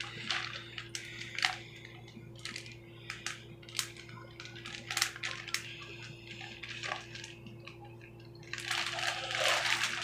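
Thin plastic bag crinkling as it is handled and twisted shut, a string of sharp crackles that thickens into dense continuous rustling about eight and a half seconds in.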